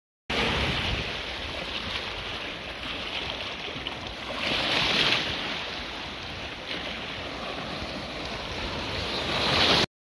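Sea waves breaking and churning in shallow surf, heard from right among them: a continuous rush of foaming water that swells into louder splashing about four to five seconds in and again near the end, where it stops abruptly.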